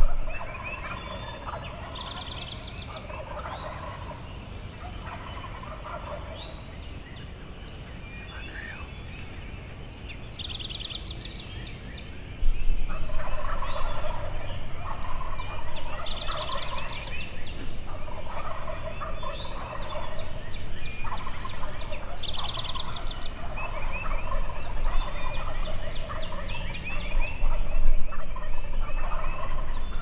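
Several wild eastern turkey gobblers gobbling again and again, the gobbles overlapping. Songbirds trill now and then. About twelve seconds in, the gobbling gets suddenly louder and comes almost without pause.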